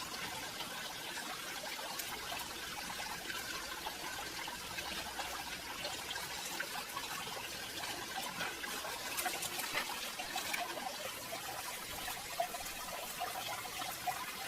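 Steady running water, with a few brief sharper sounds in the second half.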